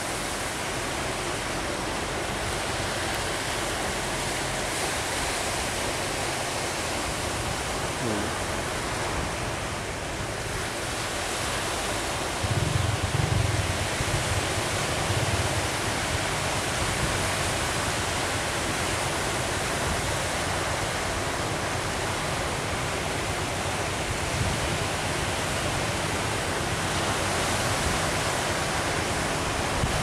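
Steady roar of ocean surf breaking on the shore, with wind on the microphone and a louder low rumble about thirteen seconds in.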